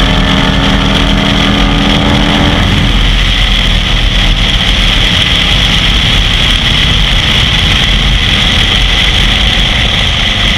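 Cruiser motorcycle's engine running hard at speed, heard from a handlebar-mounted camera with heavy wind rushing over the microphone. The engine's steady tone drops away under the wind about two and a half seconds in.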